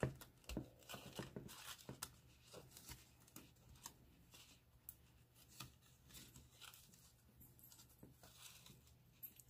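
Faint rustling and scratching of hemp cord being pulled and tied into a bow against a paper gift card and crocheted sleeve, with scattered light clicks of handling.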